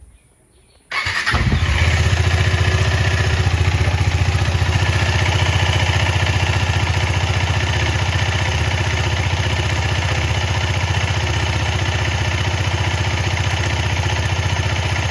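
KTM Duke 250's single-cylinder engine starting up suddenly about a second in, then running steadily with an even low pulse.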